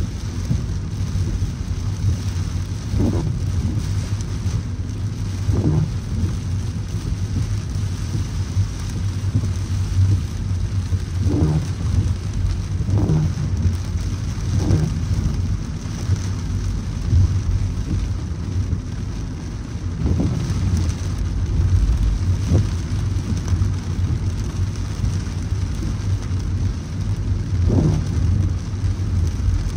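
Heavy rain falling on a moving car, over a steady low rumble of road noise, with short swells at irregular moments every few seconds.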